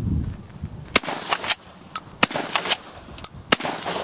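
12-gauge Remington 887 pump-action shotgun firing flechette rounds: three sharp shots about a second and a quarter apart. Smaller clicks between the shots fit the pump being worked to chamber the next shell.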